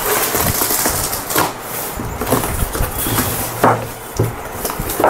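Rustling of a cardboard box and its packing, with several short knocks and clatters as the box of mobile phones is opened and its contents handled.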